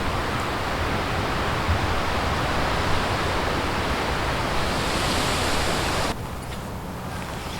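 Strong wind rushing through cypress trees and buffeting the microphone. It swells about five seconds in, then drops abruptly to a quieter rush about six seconds in.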